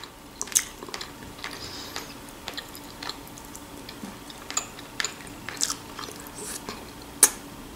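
A person chewing boiled chicken wing meat, with scattered short wet mouth clicks and smacks. One louder click comes near the end.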